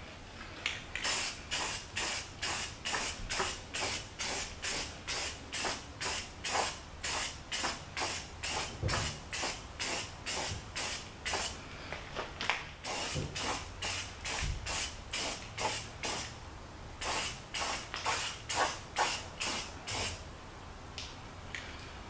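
Aerosol can of Rust-Oleum gloss black spray paint spraying in short rapid bursts, about two to three a second, with a couple of brief pauses.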